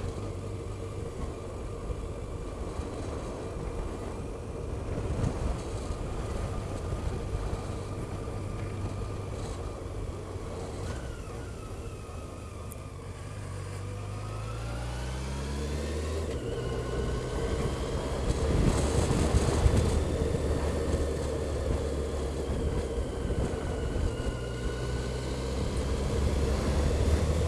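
Motorcycle engine heard from a camera mounted on the bike: it runs at a low, steady speed, then about halfway through the engine note rises as the bike accelerates, and it carries on at a higher, steady pace.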